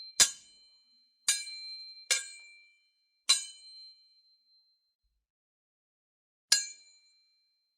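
Sword blades striking metal: five sharp clangs, each ringing on briefly with a bright metallic tone, the first four about a second apart and the last after a pause of about three seconds.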